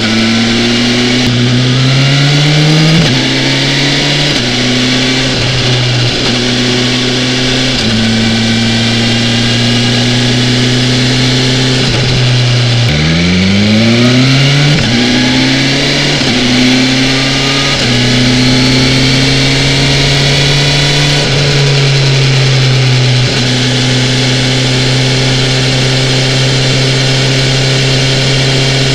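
BMW S1000XR's inline-four engine under way, pulling up through the gears with a stepped rising pitch and short breaks at each shift. About twelve seconds in it falls away, then climbs hard again through several quick shifts before settling into a steady cruising note.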